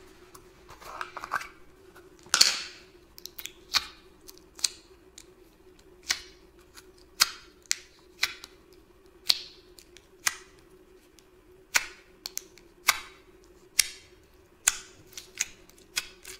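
Jelly slime being handled and squeezed, making a string of sharp clicks and pops at irregular intervals, roughly one a second. The loudest pop comes about two seconds in, over a faint steady hum.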